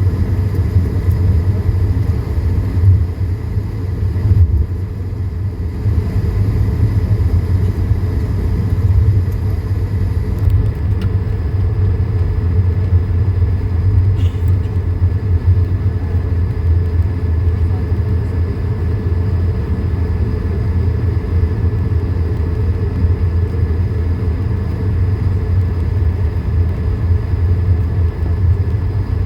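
Cabin noise of an Airbus A220-300 taxiing on its two Pratt & Whitney PW1524G geared turbofans at low taxi power. A steady low rumble with a few faint steady whining tones above it.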